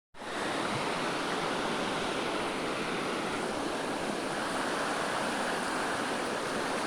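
Steady rush of a waterfall and its water running over rocks.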